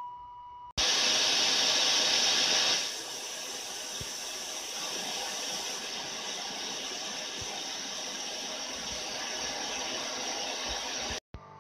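A steady test-pattern tone fades out in the first second. Then an abrupt burst of television-static white noise starts, loudest for about two seconds and then settling lower. The static cuts off suddenly near the end.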